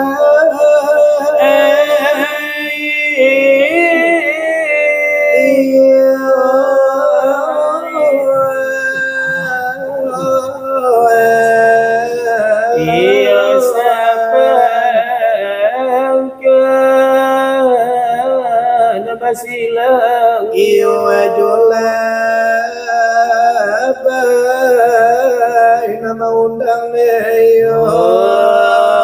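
Two men singing salawat dulang, the Minangkabau devotional chant: long held, ornamented lines with slides between notes, the voices overlapping, with no beat drummed on the brass trays.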